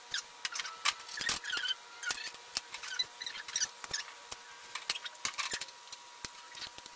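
Hard plastic Giffin Grip parts being handled and fitted together on a table: irregular small clicks, taps and rustling, over a faint steady hum.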